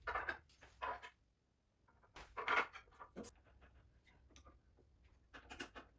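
Faint, scattered short rustles, scrapes and clicks of hands and a screwdriver handling bolts on a wooden easel frame, the loudest a little over two seconds in.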